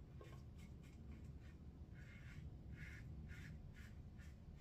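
Fatip il Piccolo open-comb safety razor with a PolSilver blade scraping through lather and stubble in a run of short, faint strokes, about three a second.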